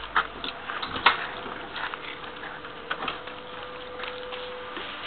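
Irregular clicks and knocks, roughly one a second, as someone boards an intercity train carriage and moves through its door vestibule, over a steady tone from the carriage.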